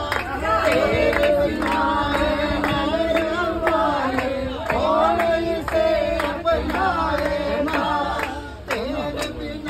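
A group of devotees singing a Hindi devotional bhajan together, a man's voice leading, with hand clapping in time.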